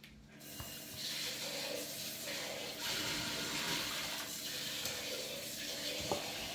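Water running steadily; it starts a moment in and stops sharply at the end.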